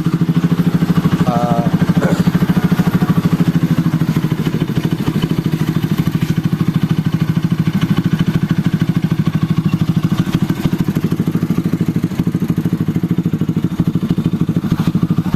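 Bajaj Rouser RS200's single-cylinder engine idling steadily through an aftermarket twisted-elbow header without resonator and an Akrapovic M1 muffler, a fast, even exhaust putter.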